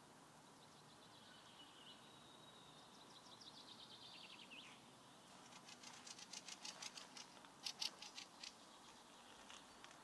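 Faint birdsong: a quick run of high notes ending in a downward slide. After it comes a rapid series of sharp, dry clicks, about five a second, the loudest part.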